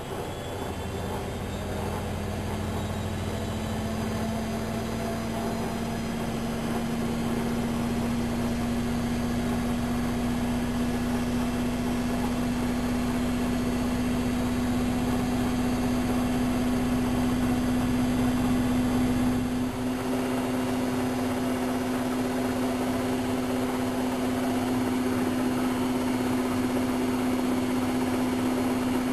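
Whirlpool Expert 1000 washing machine running its spin, with a motor whine that rises a little in pitch over the first few seconds and then holds steady. A low rumble underneath drops away about twenty seconds in.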